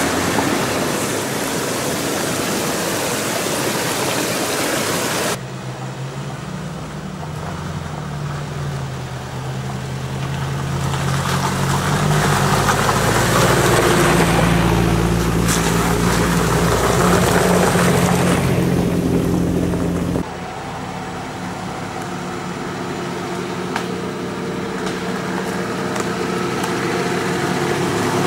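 Off-road 4x4 SUVs driving on a rough forest track. First one crawls over rocks beside rushing stream water. Then an engine drone swells as one drives close past and fades as it moves off. Last comes the steadier drone of another approaching at low speed.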